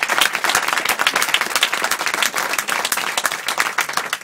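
Audience applauding: dense, steady clapping from many hands, which starts to thin out near the end.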